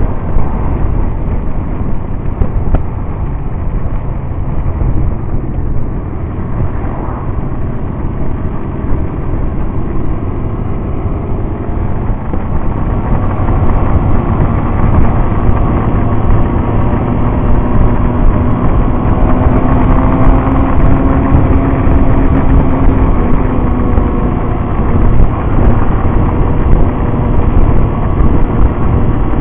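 Motorcycle engine running at road speed, buried in heavy wind rumble on the microphone; the engine note shifts up and down a little in the second half.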